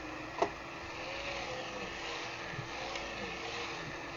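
Steady mechanical hum with a sharp knock about half a second in.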